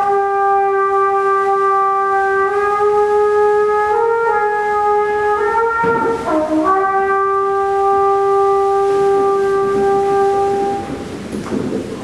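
Trumpet playing long held notes. The pitch steps up slightly a couple of times and dips lower briefly around the middle, then settles on one long note that stops near the end.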